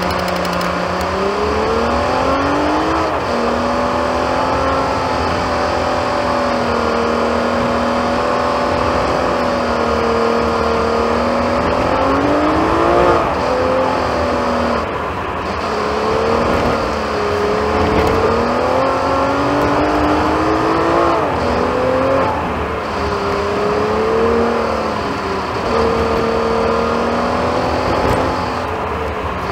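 A car's engine heard from inside the cabin, pulling steadily and rising in pitch then dropping back several times as the car accelerates and changes gear, over a steady rumble of road and tyre noise.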